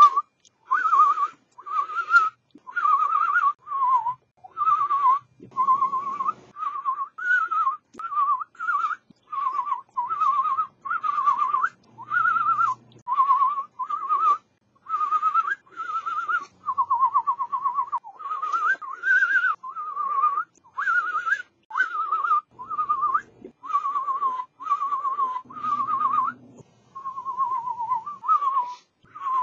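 A man whistling through pursed lips: a long run of short warbling phrases that waver quickly in pitch, broken by brief gaps about every second.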